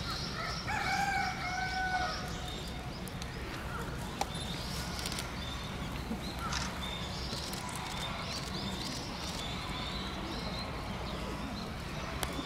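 Outdoor birdsong: runs of quick, high chirps from small birds, with one drawn-out lower call about a second in. A steady low rumble runs underneath.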